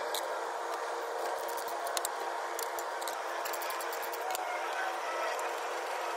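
Ratchet with a 21 mm socket clicking in short irregular runs as it backs out the front brake caliper bolts, over a steady background hum.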